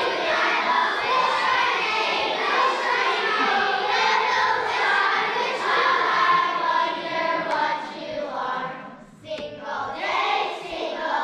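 Children's choir singing together, with a short break a little over nine seconds in before the singing picks up again.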